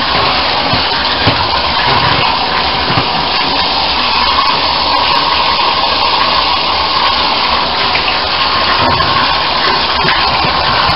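Bathtub tap running steadily, its stream splashing over a foot in a black ballet flat and into the shallow water on the tub floor.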